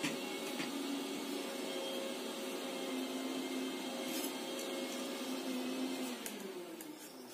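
A steady motor hum with a few held tones, which slide down in pitch and fade about six seconds in, with a few faint clicks from wires being handled.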